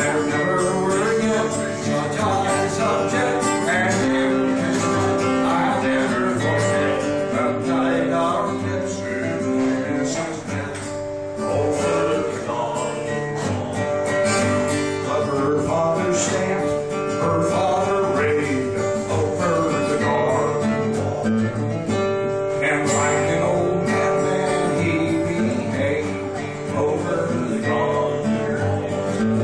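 Acoustic guitar strummed and picked through an instrumental break between verses of a folk song.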